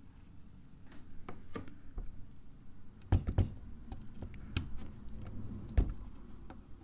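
Scattered light clicks and taps of tiny screws and small metal parts being handled on a Pentax 67's lens mount and dropped in a screw tray, the sharpest knocks about three seconds in and again near six seconds.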